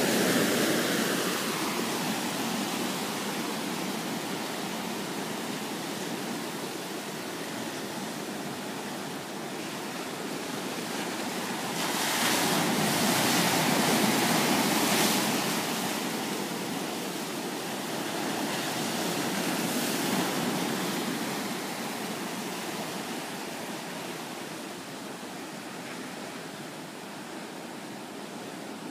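Ocean surf breaking and washing in foam over shoreline rocks. The noise of the water swells with each surge, loudest about halfway through, swells again a little later, then dies down toward the end.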